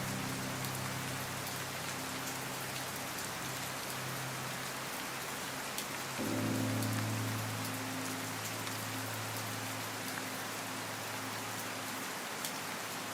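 Steady rain pattering with fine drop clicks, under a soft sustained low musical drone. A new chord swells in about six seconds in and slowly fades.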